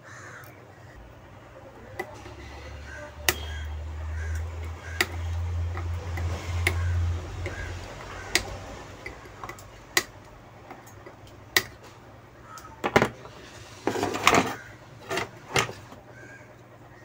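Flush side cutters snipping component leads on a circuit board: a string of sharp clicks, one every second or two, thickest near the end. A low hum rises and falls underneath in the first half.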